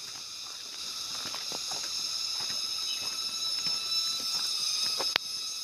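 Steady, high buzzing chorus of forest insects that swells through the middle, over irregular footsteps crunching on a gravel path. A single sharp click near the end is the loudest sound.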